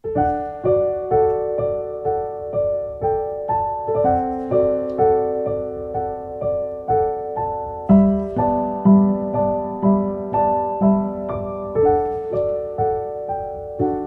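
Background piano music: a gentle melody of single struck notes, about two a second, each ringing and fading.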